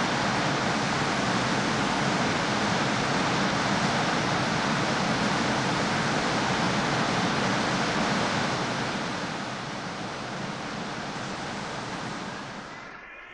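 Steady rush of a glacial river's fast water over stones, turning quieter after about nine seconds.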